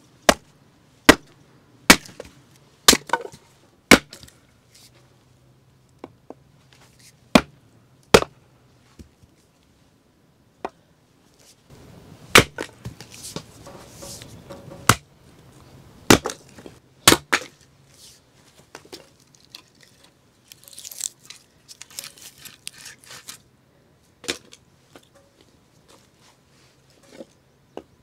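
A hatchet chopping firewood: about a dozen sharp, irregular strikes of the blade into logs, coming a second or a few seconds apart, with most of them in the first two thirds.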